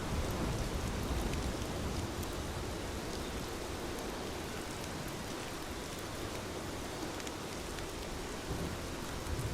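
Steady rain falling, with a low rumble of thunder that fades away over the first few seconds.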